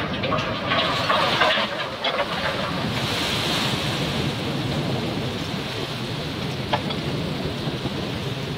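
Water rushing and splashing as a steel tugboat hull is rolled upright by a crane, with water cascading off its deck. A few sharp knocks come in the first two seconds, and one more comes near the end.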